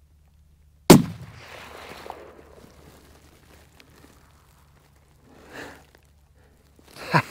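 A single shot from a CZ 600 Ergo bolt-action rifle in .300 Win Mag: one sharp, very loud crack about a second in, rolling away in a fading echo. Near the end come a few sharp clicks and rustles.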